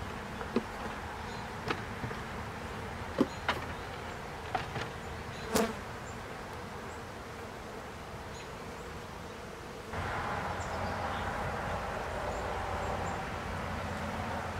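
Honeybees buzzing around an open hive while wooden frames are worked with a hive tool: several sharp wooden clicks and knocks in the first six seconds, then the overall sound gets louder about ten seconds in.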